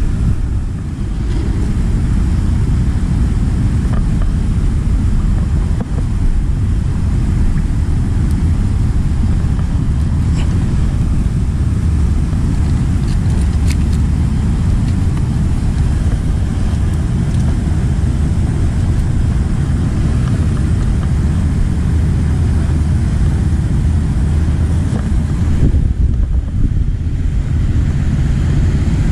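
Steady low wind rumble buffeting the microphone.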